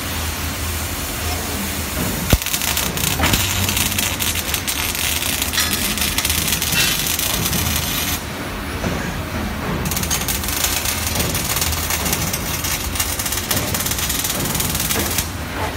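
Robot arm arc welding: a steady crackle from the welding arc over a low hum. The crackle drops away for about a second and a half near the middle, then starts again.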